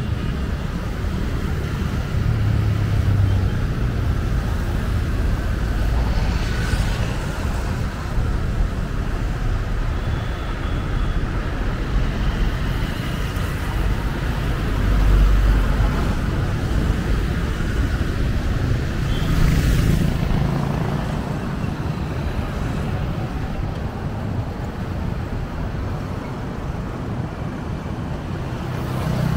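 Street traffic: a steady rumble of road noise, with passing vehicles swelling louder about halfway through and again about two-thirds of the way in.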